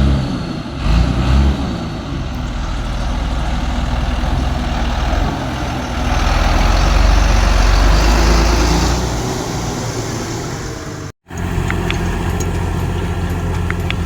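John Deere 8100 tractor's six-cylinder diesel engine running under load as it pulls a harrow, growing louder for a few seconds midway. A brief cut about eleven seconds in, after which the engine runs on steadily.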